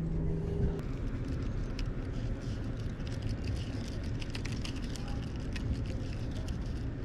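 Steady low rumble of wind buffeting the microphone, with scattered faint clicks and a short steady hum in the first second.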